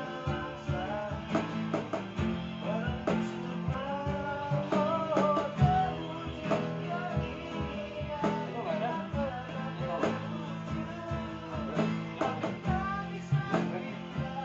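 Acoustic guitars strummed in a jam, with a cajon slapped by hand keeping a steady beat.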